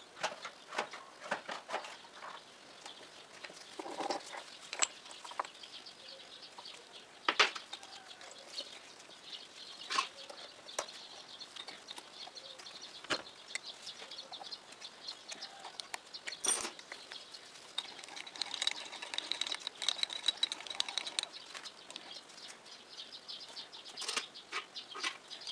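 Scattered metal clicks and knocks from a tool holder being handled and fitted on a lathe's quick-change tool post, with a few sharper clanks, over gloves and clothing rustling.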